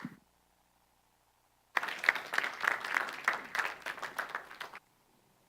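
Congregation applauding: a short round of clapping that starts suddenly about two seconds in and cuts off abruptly about three seconds later.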